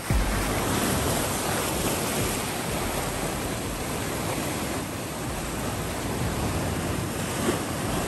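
Pacific Ocean surf surging and churning through a narrow channel between coastal rocks, a steady rush of foaming water with no break.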